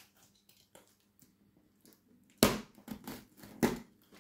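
Taped cardboard parcel being cut and pulled open with a knife: light clicks and scrapes, then two loud crackling rips of packing tape and cardboard about a second apart.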